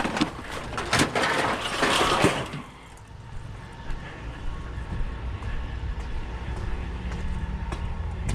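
Scrap pieces clattering and banging as they are handled and tossed onto a load, for about two and a half seconds, then a vehicle engine idling steadily.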